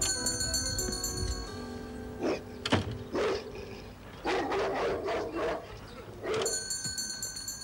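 A shop-door bell rings as the door opens, then a dog barks several times, a few separate barks followed by a longer run of barking. The bell rings again near the end. Music fades out in the first second or so.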